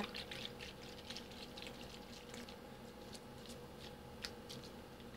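An old foam fried-egg squishy toy being squeezed by hand, giving faint, quick little crackles and squelches, a watery sound from its foam, which has gone full of bubbles with age.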